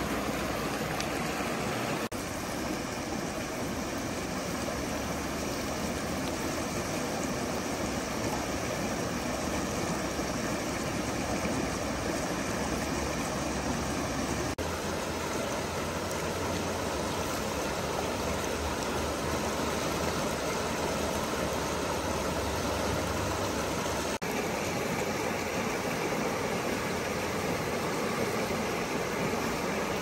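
A river flowing: a steady, even rush of water.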